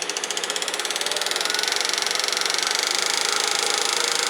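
Grizzly wood lathe starting and spinning up with a wood blank mounted: a rapid beat that speeds up over the first couple of seconds and settles into a steady whirring hum as the lathe comes up to about 1500 rpm.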